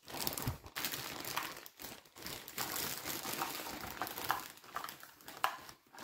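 Clear plastic bag crinkling and rustling irregularly as it is handled and opened.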